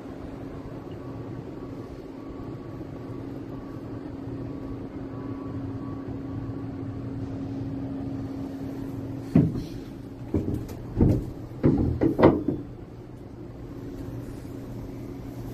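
A steady low hum, then a handful of sharp knocks and bumps against wood close to the microphone about nine to twelve seconds in.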